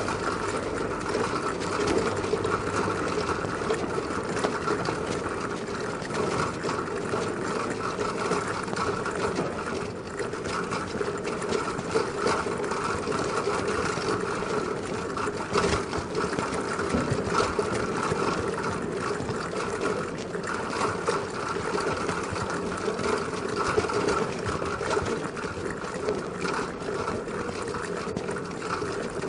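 City bicycle with a wire front basket rattling continuously as it rides over cobblestones, the basket and frame clattering with each bump over the tyre noise.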